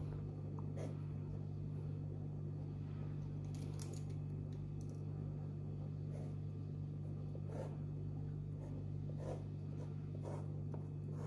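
Faint scratching of a drafting pencil drawing a centre line along a plastic set square on paper, in a few short separate strokes, over a steady low hum.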